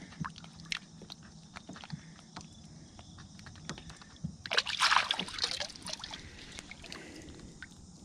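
A hand swishing and rubbing a small stone point in shallow river water to wash the mud off. There are light splashes and sloshing with scattered small clicks, and a louder splash about halfway through.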